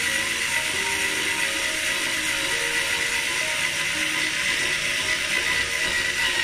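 Small cordless drill-driver whirring steadily as its bit drills out the rivet post on the base of a die-cast toy car, then cutting off suddenly at the end.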